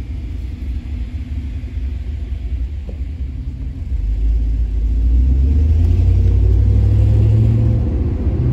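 Truck engine and road rumble heard from inside the cab while driving. About four seconds in, the engine grows louder and holds a steady low drone as the truck accelerates.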